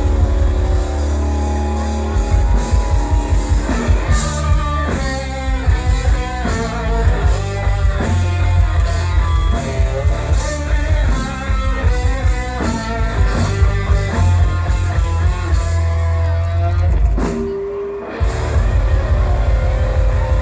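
Live country-rock band playing an instrumental passage with guitar and drum kit, without singing, with a brief break about 17 seconds in before the band comes back in.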